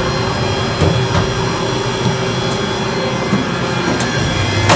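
Haas VF-2SS CNC vertical machining center running: a steady mechanical hum with a constant high whine, and a few light clicks.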